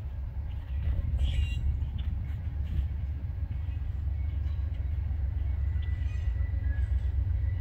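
Low, steady rumble of an approaching Amtrak passenger train still far off, led by a GE P42DC diesel locomotive. A faint, thin, steady high tone comes in about six seconds in.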